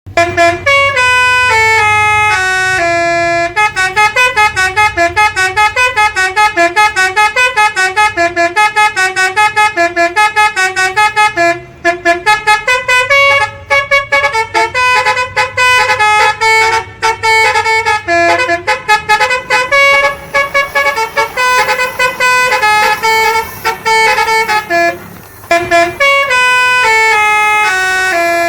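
Telolet-style multi-tone musical horn playing a quick tune of short, separate pitched notes, several a second, with a few brief breaks.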